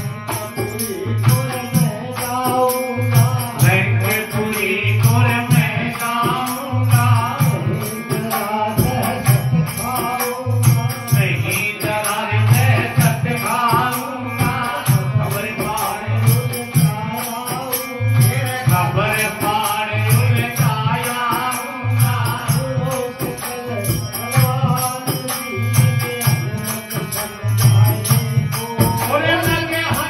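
A Hindi devotional bhajan to Hanuman: a voice singing over a steady drum beat and a rattling shaker-like percussion.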